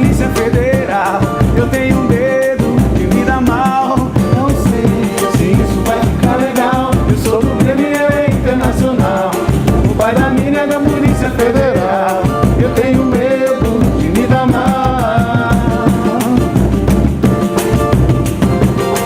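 Samba-pagode band playing live, with drums and percussion keeping a steady beat under a melody line.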